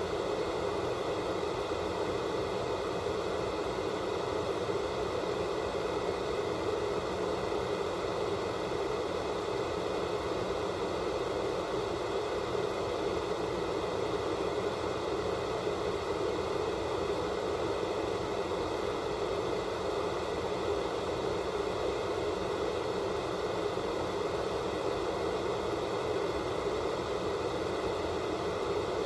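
Analog television static from a set receiving no signal: a steady, unbroken hiss, fullest in the lower middle of the range.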